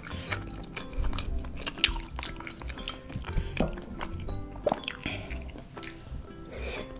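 Background music with a light melody over close-up eating sounds: a metal fork and spoon clicking against a bowl of baso aci tapioca meatballs in broth, and chewing.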